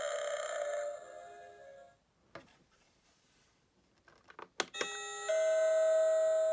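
Pan Asian Creations pumpkin doorbell playing its electronic sounds through its small speaker. One sound effect fades out in the first two seconds, a few sharp clicks follow after a short quiet gap, and about five seconds in a new electronic chime of several steady held tones starts.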